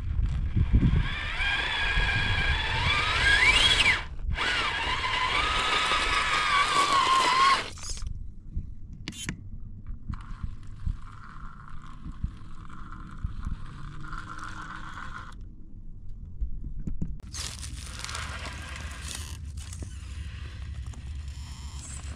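RC rock crawler's electric motor and twin-speed transmission whining, the pitch rising and falling with the throttle, while its tyres scrape and crunch over rock. The whine is loudest in the first seven or so seconds and then softer, with a few short breaks.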